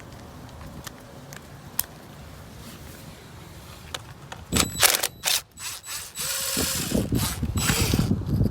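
Ratchet wrench with a 10 mm socket clicking as it loosens the bolt holding an engine coil pack. A few faint clicks at first, then louder knocks and clicks about halfway through and a fast, dense run of ratcheting near the end.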